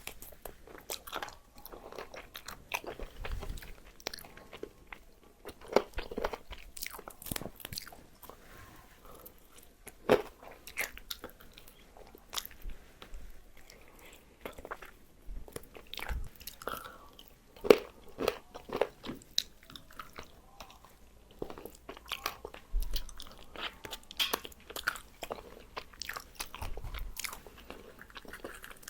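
Close-up bites and chewing of crispy fried chicken: the coating crunches and crackles in irregular snaps, with a few sharper, louder bites.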